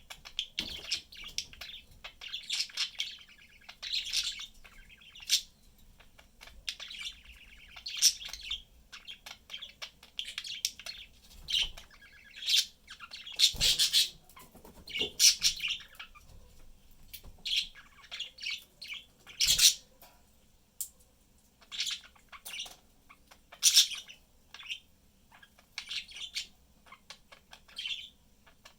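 Pet budgerigars chirping and warbling in short, frequent bursts, with a couple of sharp clicks about halfway and two-thirds of the way through.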